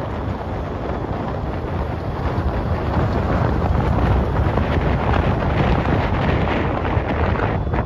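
Wind buffeting the microphone of a moving vehicle, over a steady rush of road noise; it grows louder about three seconds in.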